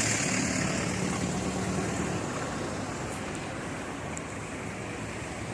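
Passing vehicle engine humming and fading away over the first two seconds, over a steady rushing background noise.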